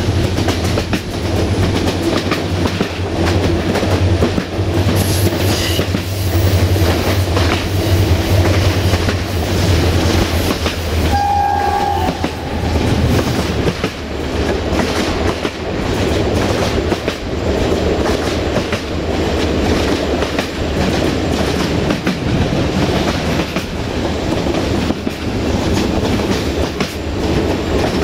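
Diesel-electric locomotive (a General Motors–engined CFR class 65) hauling a passenger train, heard from its side window: a steady low engine drone over the rush and clickety-clack of the wheels, with one short horn blast about eleven seconds in. The engine drone eases off a little after about thirteen seconds.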